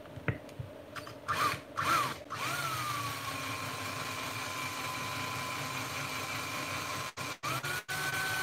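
Handheld power drill drilling out a rivet in a die-cast toy truck. Two short trigger pulses, then a steady whine for several seconds that dips a little in pitch at first, then stops, and a few quick blips and a higher-pitched run near the end.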